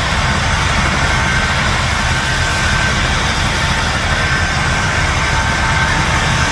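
Helicopter on the ground with its main rotor turning: a steady turbine whine over a fast low rotor chop, holding a constant pitch.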